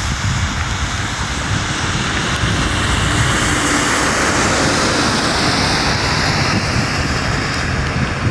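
Aircraft engine noise: a loud, steady rush, with a hissing upper band that rises and falls through the middle.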